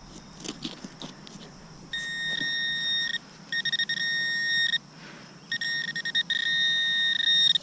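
Metal-detecting pinpointer alerting on a buried coin: a high electronic tone that comes on three times, each time stuttering briefly, then holding steady while the probe is on the target.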